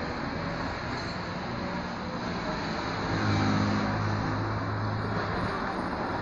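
Background road traffic, with a vehicle engine's low hum swelling about three seconds in and fading away.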